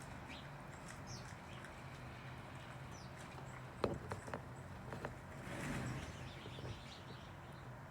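Pet birds giving a few faint, short chirps over steady background noise, with a handful of sharp clicks about four seconds in.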